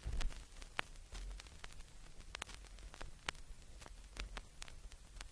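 Stylus set down on a spinning 7-inch vinyl single, with a loud click right at the start, then the lead-in groove's surface noise: scattered crackles and pops over a low rumble.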